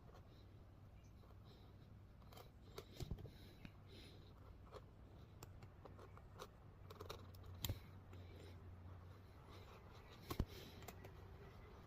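Faint, scattered clicks and crisp ticks from handling and working thin wood veneer sheets, a few sharper ones standing out about three, eight and ten seconds in, over a low steady hum.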